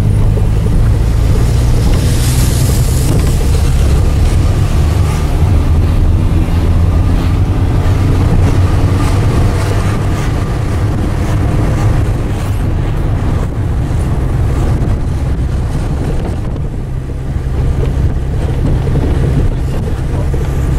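Steady low rumble of a car's engine and tyres heard from inside the cabin, with wind rushing across the microphone, dipping slightly in loudness near the end.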